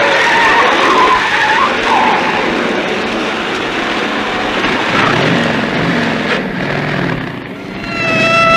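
Car engine running hard at speed with tyres squealing. Near the end a steady siren wail starts.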